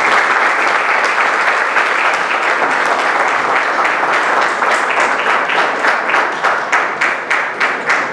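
Audience applauding: dense clapping that thins over the last few seconds into separate, distinct claps.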